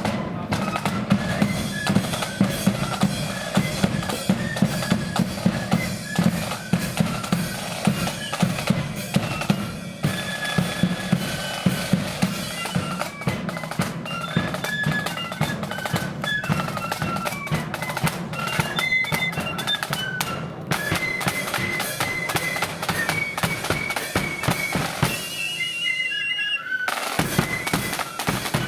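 Marching flute band playing a tune, the flutes' high melody over snare drums and a steady bass drum beat. Near the end the drums stop for about two seconds while a high flute trill carries on, then the band comes back in.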